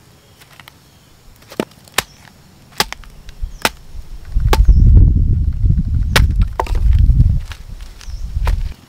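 Axe chopping a heavily worm-eaten log: separate sharp strikes about every second, irregularly spaced. A loud low rumble comes in for about three seconds in the middle and again briefly near the end.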